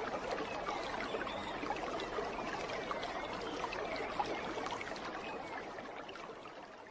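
Running water, like a stream, in a steady rushing trickle that fades down toward the end.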